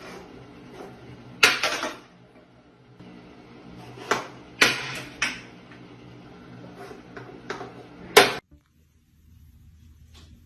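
Small potted plants being knocked off a tiled ledge by a cat and clattering onto a hard bathroom floor: several sharp knocks, the loudest about one and a half seconds in and again near five seconds, over a low steady hum.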